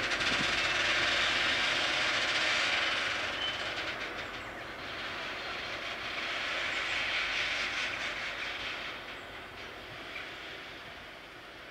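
Freight train of hopper wagons behind a G 1000 diesel locomotive rolling away over the rails: a steady rushing wheel-on-rail noise that swells twice and fades as the train recedes.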